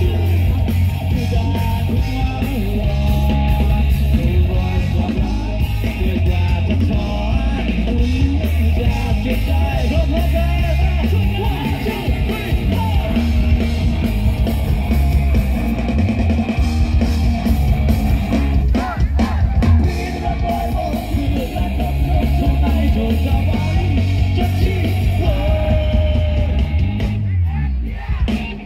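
Live rock band playing through a PA: electric guitar, bass guitar and drums, with a male singer singing and shouting over them. The music drops briefly just before the end.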